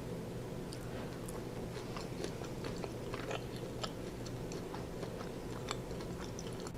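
A person chewing food close to the microphone: scattered small wet mouth clicks and smacks over a steady low hum.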